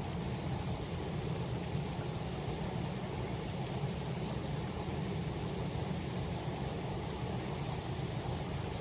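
Steady rush of a shallow rocky river flowing, with no distinct splashes or other events.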